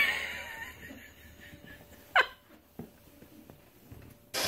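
A pug barks twice: a loud bark at the start that rings out briefly, and a short sharp yip a little over two seconds later. A brief rushing noise comes near the end.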